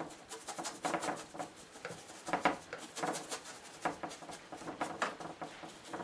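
Acrylic paint being scrubbed onto a painting board in short, scratchy strokes, about two a second in an uneven rhythm.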